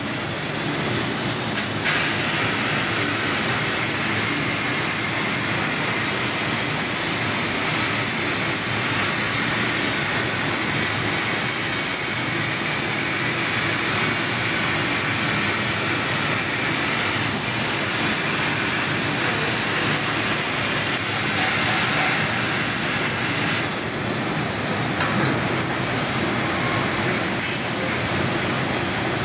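6 kW laser cutting machine cutting metal: a loud, steady hissing rush from the cutting head and assist gas, with small shifts in tone now and then.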